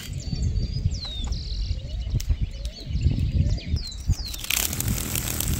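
Birds chirping: repeated short, falling calls over a steady low rumble, with a brief rushing noise near the end.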